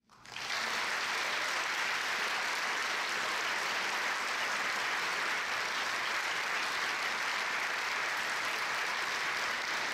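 Audience applauding steadily, fading in over the first half second.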